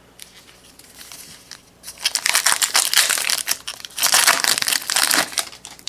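A trading-card pack wrapper crinkling as it is torn open, in two bursts of crackling about two and four seconds in.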